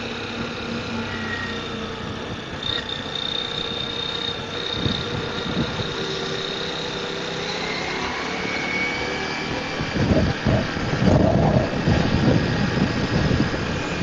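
Ducati Multistrada V4 S motorcycle's V4 engine running under way, its pitch rising slowly as the bike gathers speed. In the last few seconds, loud gusts of wind buffet the microphone.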